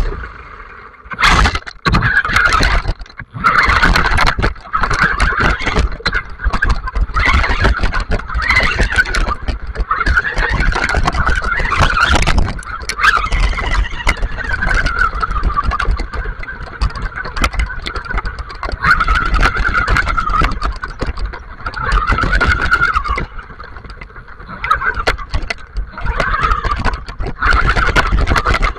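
Onboard sound of an electric RC buggy driving over wet gravel: the motor's whine rises and falls with the throttle, over the rumble of the ride and many sharp knocks as the tyres and chassis bounce over stones.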